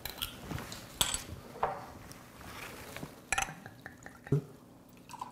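A green glass soju bottle's screw cap is twisted open, then soju is poured into a small glass. A few short clinks and knocks of glass and tableware sound on the table.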